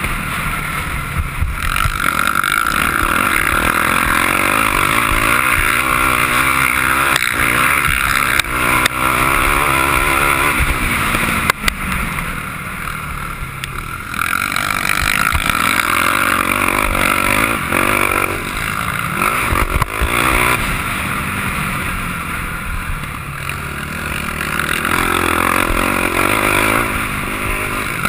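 Sport quad's engine heard from a camera mounted on the quad, ridden hard around a dirt motocross track. The throttle eases off twice, about halfway through and again later, then comes back on.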